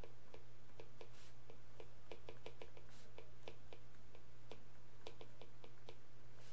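Stylus tip tapping and clicking on a tablet screen during handwriting: a string of short, faint, irregular clicks over a steady low hum.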